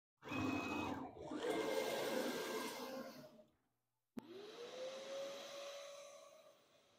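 A CNC router's electric spindle: first about three seconds of dense machine noise. Then, after a short break, a click and the spindle spinning up in a rising whine that levels off into a steady tone at speed.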